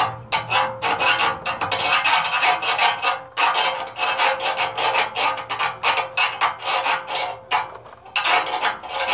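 Hand file rasping back and forth on metal in quick repeated strokes, filing out small burrs inside an exhaust part so that a piece will fit. The strokes stop briefly about three seconds in and again near the end.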